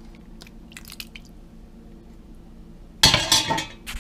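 Cookware handled in a kitchen: a few faint clicks, then about three seconds in a loud clatter of pots or dishes with brief metallic ringing, over a low steady hum.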